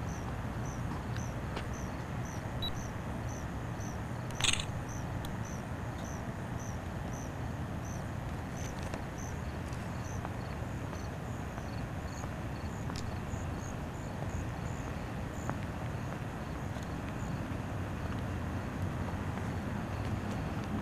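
Outdoor night ambience: a steady low rumble with a short high chirp repeating evenly a little over twice a second, pausing midway and returning briefly. A single short sharp sound stands out about four and a half seconds in.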